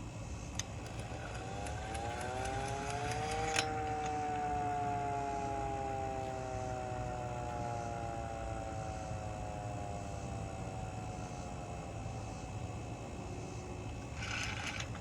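Vixen Horns VXS-2000MTP hand-crank siren wound up once: several tones rise together for about two and a half seconds to a sharp click at the top, then slowly fall for about ten seconds as the rotor coasts down.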